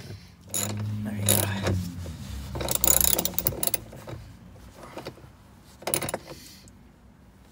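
Hand socket ratchet wrench clicking in several bursts as bolts are run down into a steel mounting bracket.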